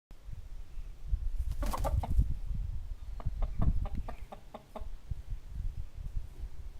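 Domestic chickens clucking: a brief harsh squawk, then a quick run of about six short clucks.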